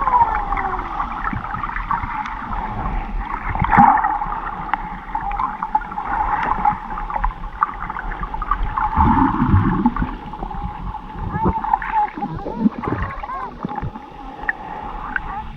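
Sea water sloshing and gurgling in the shallows, muffled, with many quick squeaky rising and falling glides.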